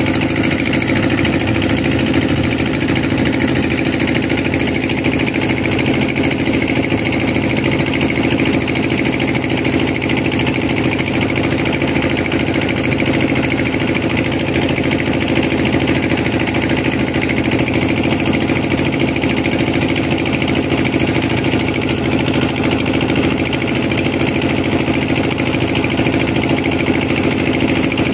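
A small wooden fishing boat's engine running at a steady pitch, unchanging throughout.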